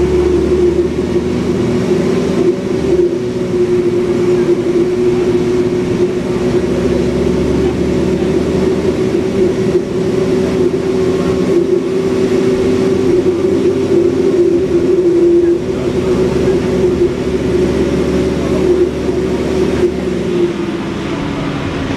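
Alexander Dennis Enviro 400 bus's Cummins ISBe diesel engine running, with a low rumble and a steady droning tone. Both ease off near the end.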